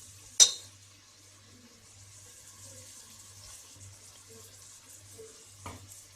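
Thinly sliced onions deep-frying in oil with a steady sizzle, nearly crisp and browned. A sharp knock comes about half a second in and a softer one near the end.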